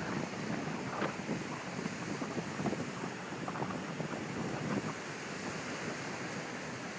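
Ocean waves washing at the shore: a steady rush of water broken by irregular small splashes.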